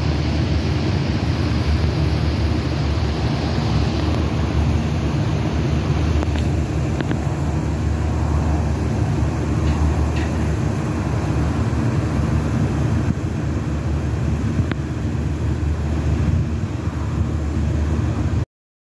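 Steady low vehicle engine rumble with a hum, from idling cars, running until it cuts off abruptly near the end. A few faint clicks.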